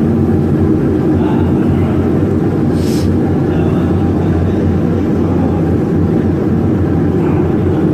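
Steady mechanical hum and rumble of running machinery, with one short sharp click about three seconds in.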